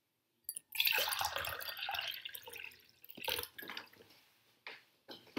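Water poured from a bottle into a straight-sided glass tumbler, running and splashing as the glass fills for about two seconds from just under a second in, then a few scattered drips and small knocks.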